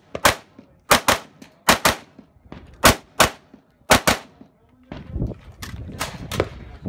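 Kalashnikov-pattern rifle fired in quick pairs of shots (double taps) at close range, about five pairs over four seconds. After about five seconds comes a faster, quieter string of shots.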